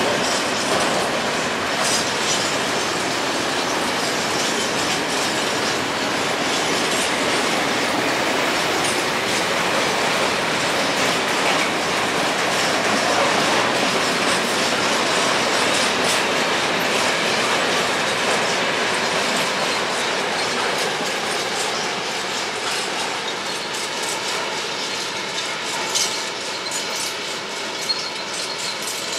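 A freight train's wagons rolling steadily past, wheels clacking over the rail joints, the sound easing slightly toward the end.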